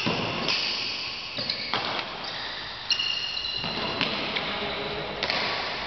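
Badminton rally: a few sharp racket strikes on the shuttlecock, one to two seconds apart, mixed with short high squeaks of shoes on the court floor.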